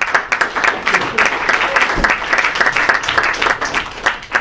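Audience applauding: dense clapping that thins out near the end, with one low thump about two seconds in.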